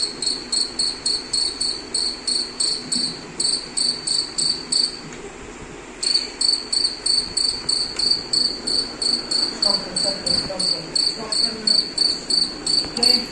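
Cricket chirping: a high-pitched chirp repeated about three times a second, pausing for about a second some five seconds in and then starting again.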